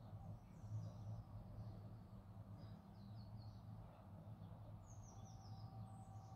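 Faint birdsong: scattered short high chirps, with a quick run of falling notes about five seconds in, over a low steady hum.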